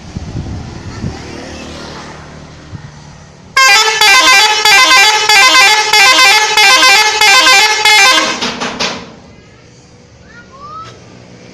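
A truck's telolet horn, a multi-tone musical horn, playing a quick stepping melody of short notes for about four and a half seconds, starting about three and a half seconds in and ending with a few short blasts. A truck engine runs low and steady before and after it.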